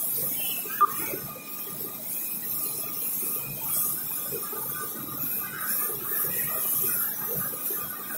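Coating lamination machine running, winding plastic film onto a roll: a steady mechanical rumble and hiss with faint steady whine tones, and one short sharp click about a second in.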